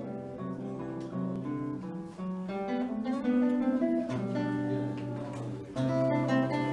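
Classical nylon-string guitar played solo, fingerpicked: a moving line of plucked notes over held bass notes.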